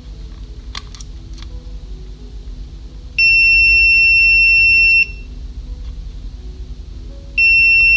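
Digital multimeter's continuity beeper sounding twice, each a loud steady high tone: the first about three seconds in, lasting nearly two seconds, the second starting near the end. The probes are on what is taken for the positive side of a graphics-card component, which should not beep, so the beep is read as a sign of a low-resistance path or short to ground there.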